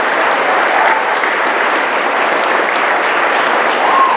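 Crowd applauding steadily, many people clapping together with a few faint shouts.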